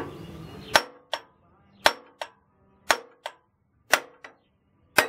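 Hammer blows on the flywheel hub of a 1957 Briggs & Stratton model 14 engine, knocking the cast-iron flywheel loose from the crankshaft. There are five sharp metallic strikes about a second apart, each with a lighter bounce just after it and a brief ring.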